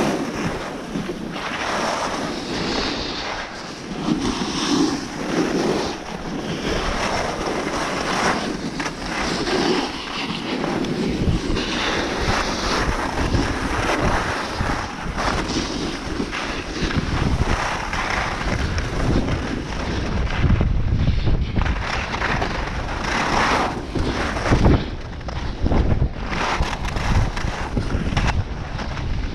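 Wind buffeting a chest-mounted action camera's microphone during a ski descent, with the hiss and scrape of Head alpine skis sliding over packed snow. The noise surges and eases with the turns, and the low wind rumble gets much heavier partway through as speed builds.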